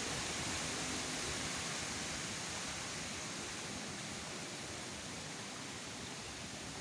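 Strong wind blowing in a storm: a steady rushing noise that eases slightly toward the end.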